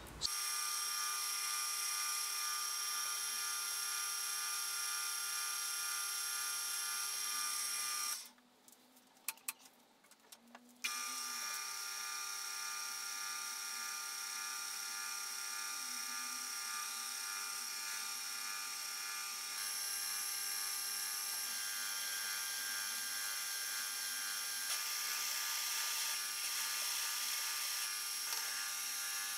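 Milling machine spindle running with a steady whine while a drill bit cuts holes through a metal plate. The sound stops for a couple of seconds about eight seconds in, then runs steadily again.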